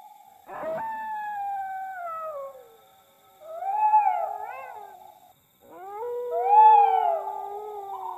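Canine howling: three long howls, each sliding down in pitch, the third with two voices howling together.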